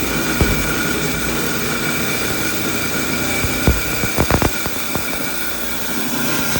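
Rock saw running steadily as it cuts a geode, a constant motor and blade noise with a high whine, with a few sharp knocks, a cluster of them about four seconds in.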